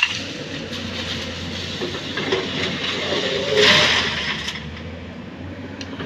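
Heavy diesel machinery running steadily, with a short rushing burst of noise about three and a half seconds in.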